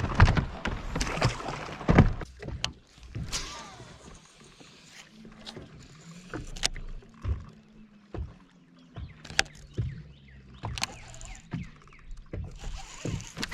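Knocks and clatter aboard a fishing boat on the water, with a faint low steady hum through the middle.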